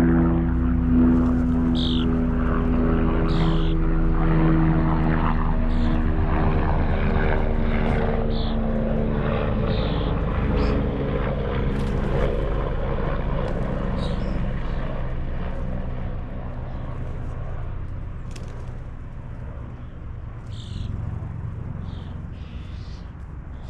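A low engine drone of a passing vehicle or aircraft, its pitch slowly sinking as it fades away. Short bird chirps sound over it every second or two.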